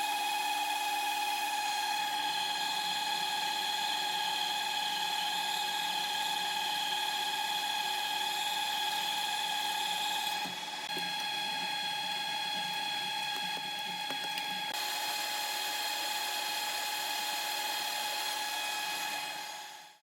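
Metalworking machine tool running while machining steel, with a steady high-pitched whine. The sound shifts abruptly about ten and fifteen seconds in and fades out right at the end.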